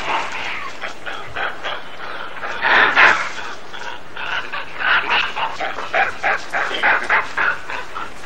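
A troop of rhesus macaques calling during a fight between groups. Many short calls overlap, loudest about three seconds in.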